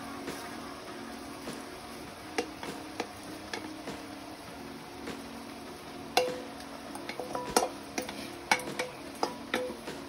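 A wooden spatula scrapes and knocks against a stainless-steel bowl as frozen callaloo is pushed out of it into a hot pot, over a faint sizzle. The knocks come sparsely at first and grow more frequent in the second half.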